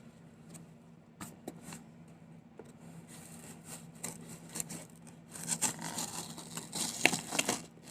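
Scraping, rubbing and small clicks as a cardboard gift box is worked open with a blade, busier in the last few seconds, over a faint steady hum.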